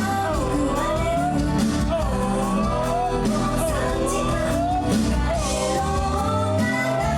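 Live J-pop idol song: a female lead vocal sings phrases that each swoop upward, then holds one long note near the end, over a loud backing track with bass and drums, heard through the hall's PA.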